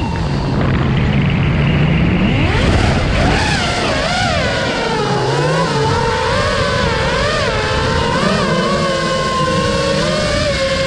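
The four brushless motors and props of an FPV freestyle quadcopter whining as they follow the throttle. The pitch drops sharply right at the start as the throttle is chopped, stays low for about two seconds, then climbs and wavers up and down with throttle changes before settling to a steadier tone near the end.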